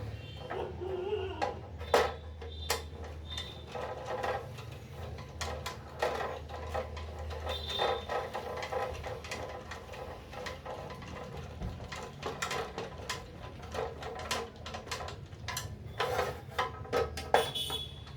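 Irregular clicks and clinks of hand tools and metal parts being handled during a repair, over a faint steady low hum.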